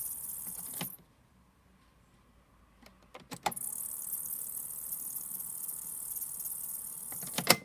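Goko RM-5000 film editor giving off a high, hissing whine in pause or play, an unwanted noise that is very distracting. The mode knob clicks it off about a second in. A few clicks bring it back about three and a half seconds in, and near the end it cuts off again with a sharp click.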